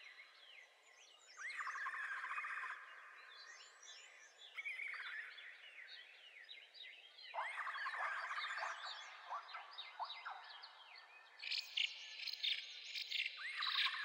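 Several birds chirping and singing over one another in bursts of quick rising and falling notes, with a thin steady high tone running underneath.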